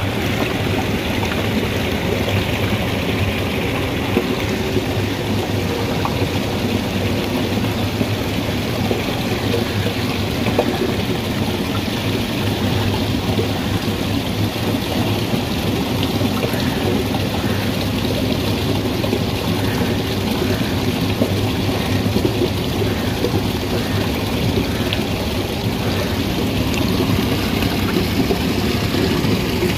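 Steady rushing of water, an even hiss with a low rumble underneath and no clear breaks.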